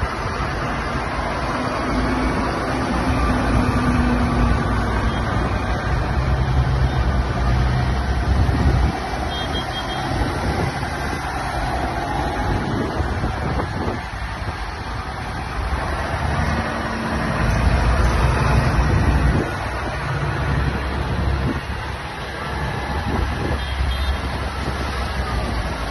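A procession of tractors driving past one after another, their diesel engines running and the sound getting louder and fading again as each tractor goes by.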